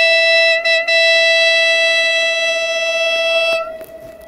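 Horn of an approaching Siemens Desiro diesel multiple unit sounding one long, loud, steady note. The note breaks off for a moment just under a second in, then stops about three and a half seconds in, leaving a fading echo.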